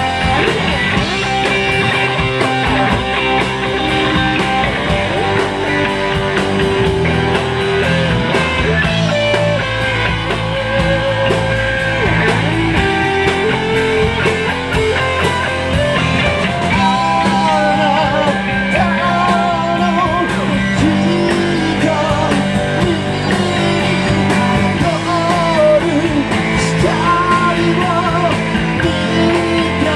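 Live rock band playing loud and steady: distorted electric guitars over bass and drums. From a little past halfway, a voice sings a wavering melody over the band.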